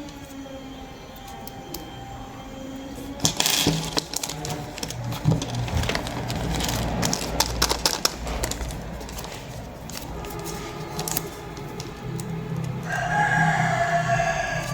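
Background music, with crinkling and clicking from packaging being handled, thickest from about three seconds in to about ten seconds in.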